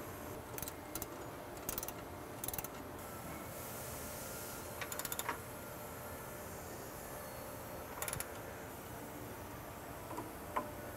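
Hand ratchet wrench clicking in about six short runs of rapid clicks while tightening the suspension toe-link bolts, with a few metal wrench clinks.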